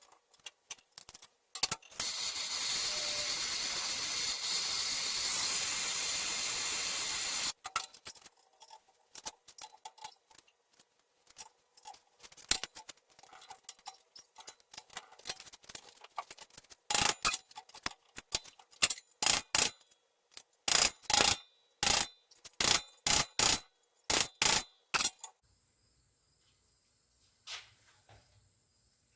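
A steady hiss for about six seconds. Later comes a run of about fifteen sharp metallic hammer blows on a chisel, driving a stuck seal out of a brake slave cylinder.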